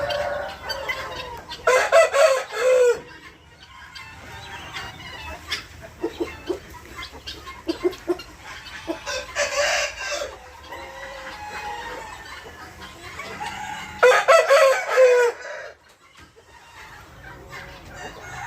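Aseel roosters crowing: two loud crows, one about two seconds in and one near the end, with softer clucking calls between.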